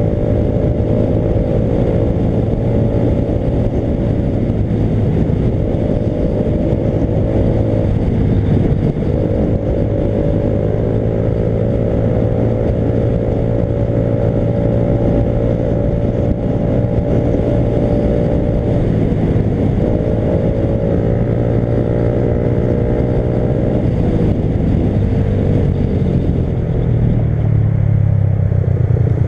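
Motorcycle engine running on the road under steady throttle, its pitch climbing gradually and dropping at shifts about a third and two-thirds of the way through. Near the end the engine note falls away as the bike slows.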